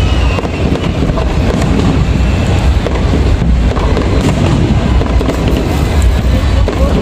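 Fireworks display: a dense, unbroken run of crackling and popping from aerial shells and ground fountains, over a heavy low rumble.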